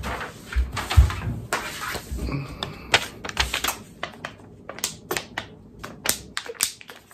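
A sheet of paper handled and pressed against the face close to the microphone: a run of sharp, irregular crinkling clicks, growing denser about halfway through, with a few low bumps near the start.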